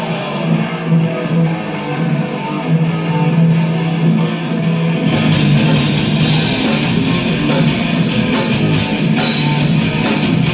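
Live thrash metal intro: a distorted electric guitar riff plays alone, and the full band with drums and cymbals comes in about five seconds in.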